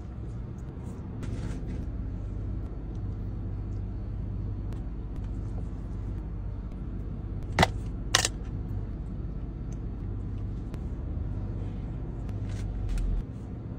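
Car engine idling, a steady low hum heard inside the cabin. Two sharp clicks about half a second apart come near the middle.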